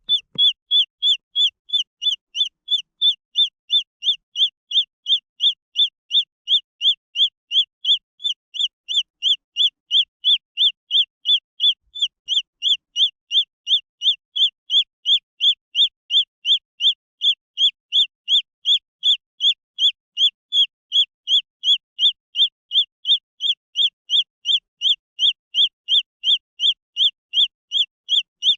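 Green junglefowl chick peeping: a steady, unbroken string of short, high, falling peeps, about three a second.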